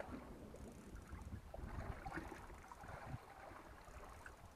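Choppy sea water sloshing against a small boat's hull, with a low uneven rumble of wind on the microphone.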